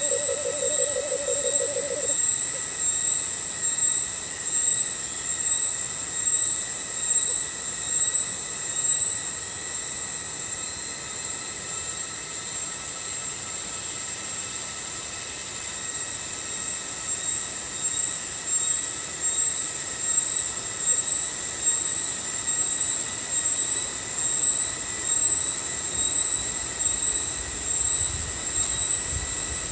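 Forest insects, cicadas, shrilling high and steady, the sound throbbing in a slow, even pulse.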